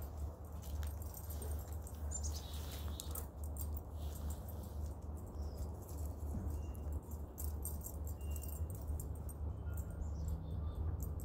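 Outdoor ambience: a steady low rumble with scattered light clicks, and a few faint, short, high-pitched chirps in the second half.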